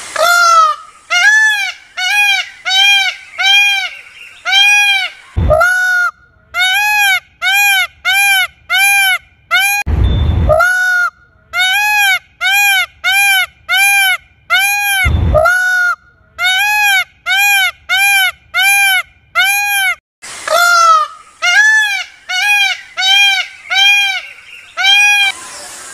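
Indian peacock calling over and over: runs of short, loud, honking notes about two a second. Each run opens with a longer rising call. About ten seconds in there is a brief rough, noisy burst.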